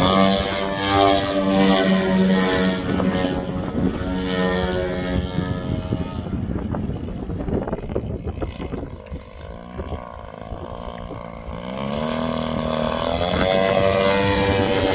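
Giant-scale Extreme Flight Slick 580 RC aerobatic plane's GP 178cc gas engine swinging a 30x13 propeller in flight, its pitch rising and falling with the throttle. It grows fainter about two-thirds of the way through as the plane flies farther off, then swells and rises in pitch as it comes back in on a low pass.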